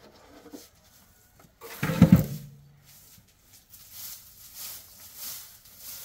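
A calf gives one short, low moo about two seconds in. After it, a straw broom sweeps through hay on a barn floor in regular swishes, about three every two seconds.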